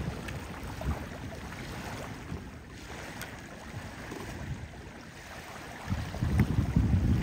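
Wind buffeting the microphone over small waves lapping at the shore, with a stronger gust of low rumbling near the end.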